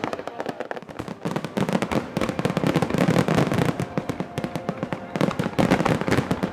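Aerial fireworks display: a dense run of bangs and crackles that thickens and grows louder about a second in.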